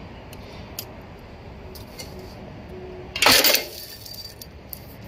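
Automatic feeding riveting machine making a single short, loud stroke about three seconds in, lasting under half a second, with a few light metallic clicks from a metal strap being handled on its anvil pins before it.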